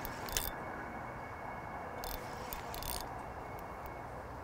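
Fishing reel clicking and rattling a few times while a hooked carp is played on the rod, the clicks bunched around two to three seconds in, over a faint steady outdoor hiss.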